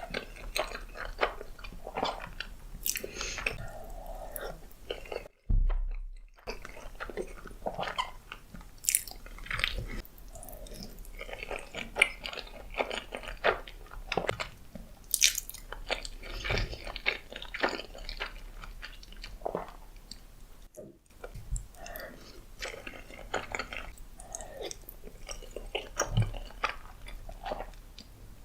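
Close-miked chewing and biting of spaghetti: dense, irregular wet mouth clicks and smacks, broken by two short gaps of silence about five and twenty-one seconds in.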